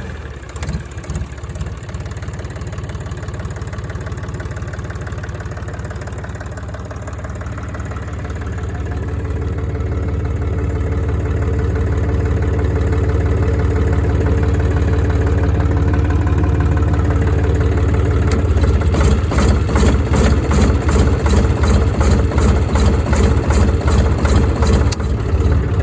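YD385 diesel engine running an 11 kW generator under load-test conditions. Its note grows steadily louder over several seconds. From about two-thirds of the way in, it takes on a rhythmic pulsing of two to three beats a second.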